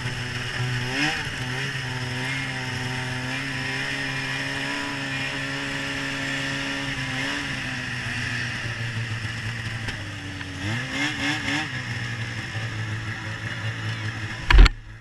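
Polaris XC 700 snowmobile's two-stroke engine under throttle: it revs up about a second in, holds steady, eases off, then gives a few quick throttle blips. A loud thump near the end.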